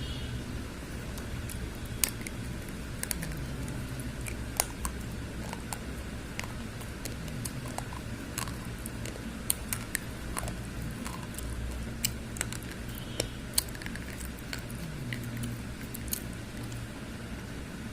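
Slate pencils being bitten and crunched: sharp, irregular clicks, several a second at times, over a steady low hum.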